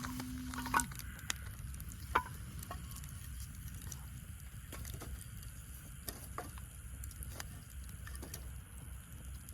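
Wood fire burning in a fire pit stand, crackling with irregular sharp pops over a low, steady rumble; two louder pops stand out in the first few seconds.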